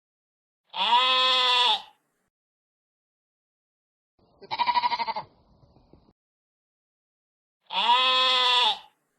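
Bleating farm animal: three long bleats with silence between, the middle one shorter and quavering, the first and last alike.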